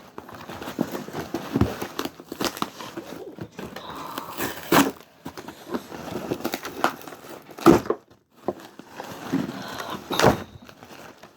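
Packaging being handled and dug through: irregular rustling and crinkling with scattered clicks, and a few louder knocks.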